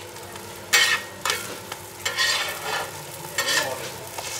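Roti canai frying on a hot flat griddle, a steady sizzle, with several louder scraping strokes as the flatbreads are pressed and turned over.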